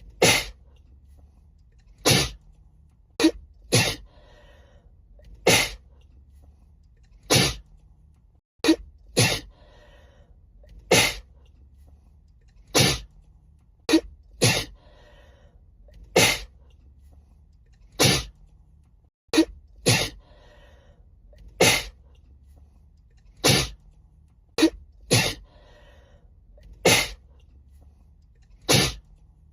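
A woman sneezing over and over in a fit, with sharp sneezes about every one to two seconds, some coming in quick pairs.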